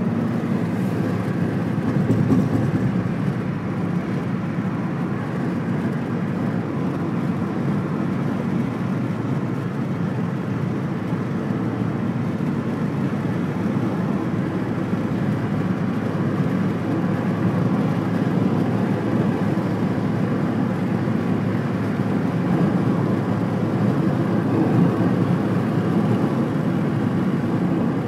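Steady rumble of road and engine noise inside a moving car's cabin, even throughout.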